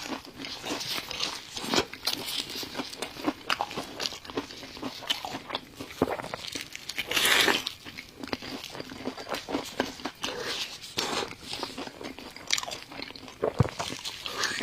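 Close-up eating: a person biting and chewing crunchy food, with many sharp crunching clicks and a longer, louder crunch about seven seconds in.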